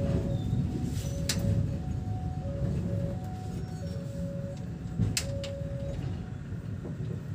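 Level-crossing warning alarm ringing in a repeating two-tone pattern, over the low rumble of a train rolling slowly along the track. Two sharp clacks come about a second in and about five seconds in, the second the loudest.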